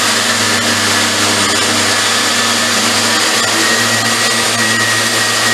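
Random orbital sander running steadily as it sands the metal-clad top of an antique trunk, a constant motor hum under an even sanding hiss.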